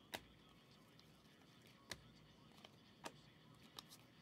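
Panini Prizm football cards being flicked one at a time through a stack in the hand, giving a few faint, sharp clicks about a second apart over a low background hiss.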